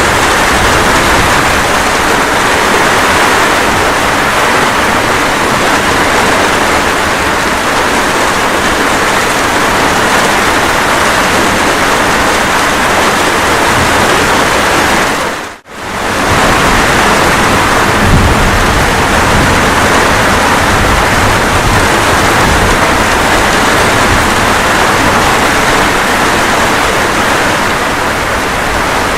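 Steady rain, an even hiss. It cuts out for a moment about halfway through and fades straight back in, with a low rumble of distant thunder underneath shortly after.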